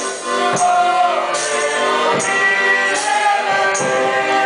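Live ensemble music: sustained chords with voices singing over them, and a tambourine struck roughly once a second.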